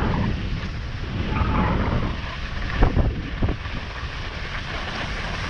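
Wind buffeting the microphone of a skier moving downhill, with the hiss and scrape of skis running over groomed snow. There are a few sharper, louder scrapes about three seconds in.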